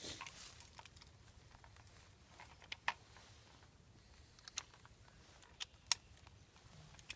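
Trail camera being handled and fitted against a tree trunk: scattered light clicks and taps, several in all, a second or so apart.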